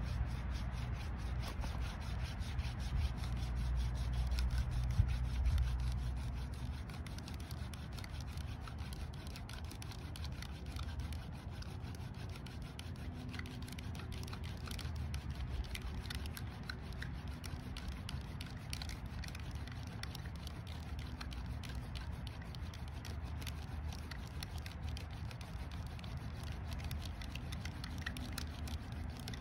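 Hand-drill fire by friction: a honeysuckle spindle with a goldenrod bit, spun back and forth between the palms, grinds into a white pine fireboard with a continuous rubbing, scraping sound. It is somewhat louder for the first six seconds.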